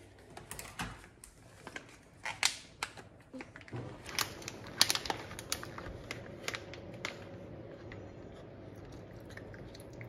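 Plastic pouch of currants being torn open by hand: a run of sharp crinkles, crackles and rips. A steady low hum comes in about four seconds in.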